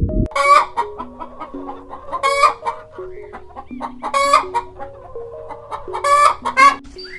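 Chicken calling over background music: four loud, sharp calls about two seconds apart, with quieter clucking between them.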